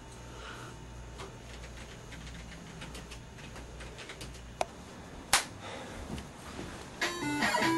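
Thumbs pressing keys on a Samsung phone's QWERTY keypad: a run of small clicks, with two sharper clicks a little past halfway. Loud bleepy music starts near the end.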